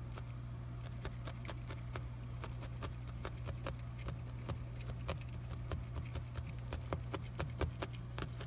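Felting needles stabbing repeatedly through wool roving into linen backing: a quick, irregular run of small sharp ticks, several a second, over a steady low hum.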